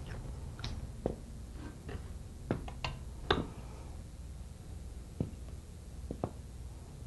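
Blades and pins of a sliding-vane pump rotor being lifted out by hand and set down on a workbench: scattered light clicks and knocks, the sharpest a little over three seconds in.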